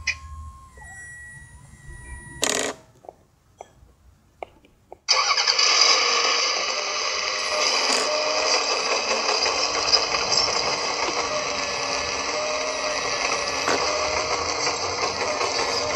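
Radio-controlled 1:14.5 scale CAT 963 B crawler dozer: a faint electric whine and a few sharp clicks, then about five seconds in a loud, steady mechanical engine and clatter noise starts suddenly and keeps going.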